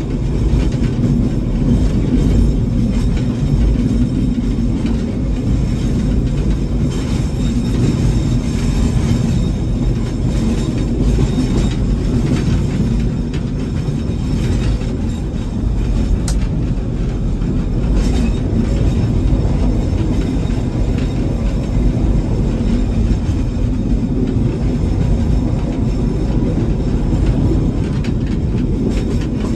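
Narrow-gauge forest railway train running, heard from the locomotive cab: a steady low drone of engine and wheels on track, with two brief sharp clicks a little past the middle.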